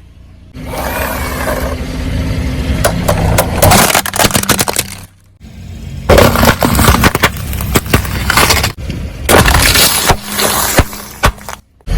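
Car tyres rolling over and crushing objects: repeated cracking, snapping and crunching over a low steady hum, in three stretches broken by short silences about five seconds in and near the end.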